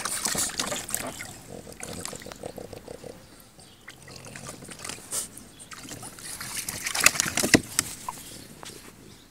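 French bulldogs splashing about in the shallow water of a plastic paddling pool, one mouthing at the water, with a few sharp splashes about seven seconds in.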